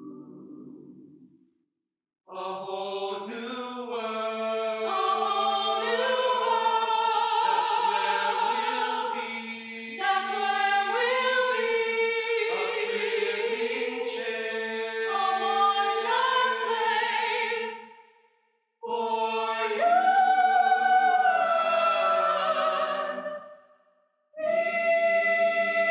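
Eight-voice mixed a cappella ensemble singing sustained chords in close harmony, in phrases separated by short pauses: one near the start, one about two-thirds of the way through and one near the end.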